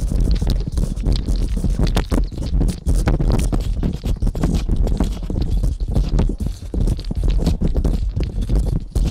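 Heavy continuous low rumble with dense, irregular scraping and crackling clicks, picked up by a microphone lowered down a borehole. The uploader presents it as the sound of underground tunnel-digging work.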